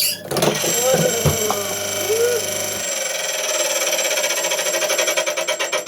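Wood lathe running, with short squeaks of something rubbing on the spinning workpiece. Its low hum drops away about three seconds in, leaving a steady high whine with a fast, even ticking.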